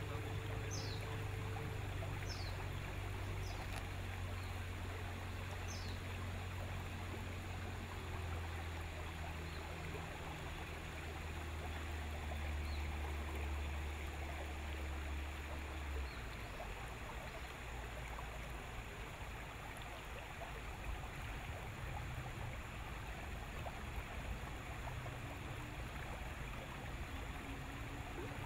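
Outboard motor of a small river boat running with a low steady hum under the rush of water along the hull. The engine hum drops away a little past halfway, leaving the water rushing on. A few short high chirps come in the first six seconds.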